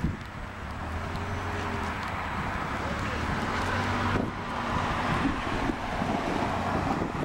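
Wind rumbling on the microphone over street traffic noise, with a car driving past on the road; its tyre noise swells about four seconds in and fades near the end.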